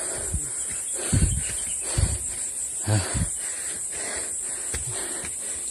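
Steady high-pitched drone of insects, with a few soft low thumps of footsteps about once a second.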